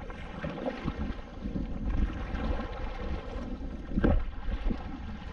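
Wind buffeting the microphone over choppy lake water while a kayak is paddled, with one louder brief sound about four seconds in as the paddle swings through.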